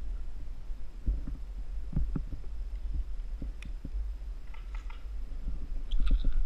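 Low rumble of handling noise on a GoPro camera's microphone as the camera swings on a rappel rope, with scattered soft knocks and a few light clicks.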